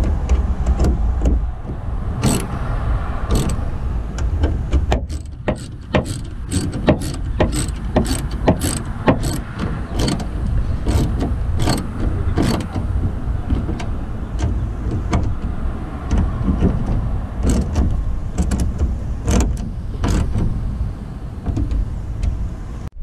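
Hand tool clicking in short runs, often about two or three a second, as a metal bolt is turned into the plastic mounting of a Ford F-150 tail light, over a steady low rumble.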